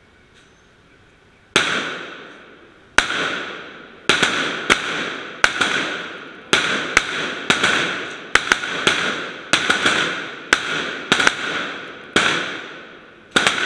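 M4 rifle firing about twenty single 5.56 mm shots at an uneven pace, starting about a second and a half in, each crack followed by a long echo off the covered range's roof and walls.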